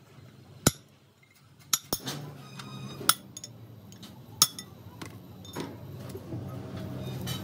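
Metal parts of a truck differential clinking against each other and against tools, with about five sharp, ringing strikes spread over several seconds.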